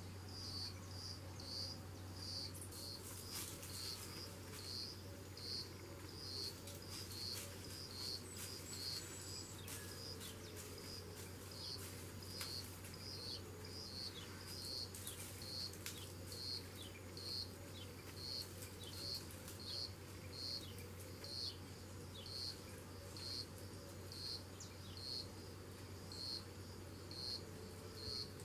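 An insect chirping in a steady high-pitched rhythm, about two chirps a second, over a low steady hum. Scattered clicks and short falling chirps come and go through the middle stretch.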